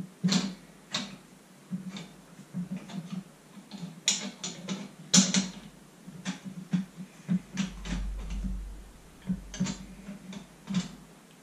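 Irregular metallic clicks and clacks of a Springfield Armory M1A's operating rod and bolt being worked by hand while the op rod is fitted into its track during reassembly. The loudest clacks come about four and five seconds in.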